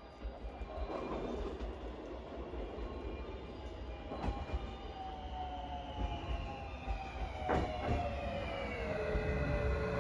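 JR West 223 series 5500 subseries electric train pulling in and slowing: a low rumble with a few sharp wheel clicks. From about halfway, a set of whining tones falls steadily in pitch as it brakes.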